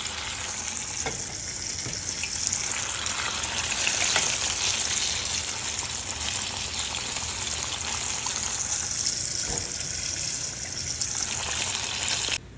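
Southern-style breaded chicken breast deep-frying in hot oil in a saucepan: a steady, dense sizzle of bubbling oil with a few faint clicks. It cuts off abruptly near the end.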